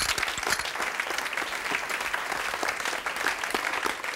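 Studio audience applauding: many hands clapping at a steady level.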